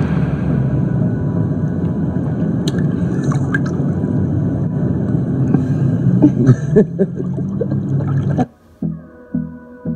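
Hot tub jets churning the water: a steady, loud rumbling gurgle, with a few sharp knocks or splashes about six to seven seconds in. It cuts off suddenly near the end, replaced by music with a slow pulsing beat.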